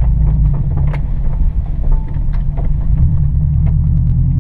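A car being driven slowly over rough, muddy off-road ground: a steady low engine and road rumble, with a few scattered knocks and clicks from the car going over bumps.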